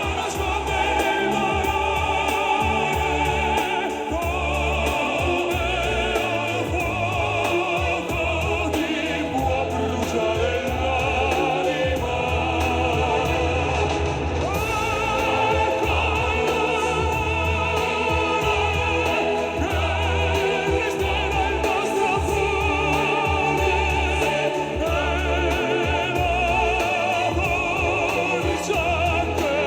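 Background music: an operatic voice singing with vibrato over an instrumental backing with a steady bass.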